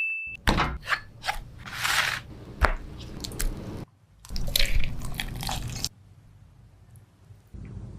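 Crunching of the crisp crust on cheese-filled chicken: a few separate crunches in the first half, a longer crunchy stretch around the middle, then quieter.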